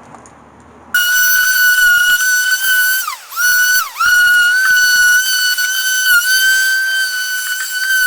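High-pitched whine of a power tool's motor running at speed. Its pitch drops sharply and recovers twice in quick succession as the tool is briefly loaded, then holds steady.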